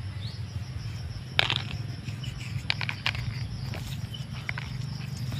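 Hands sprinkling and rubbing coarse salt onto a raw pork cut on a banana leaf: a few light clicks and taps over a steady low background hum.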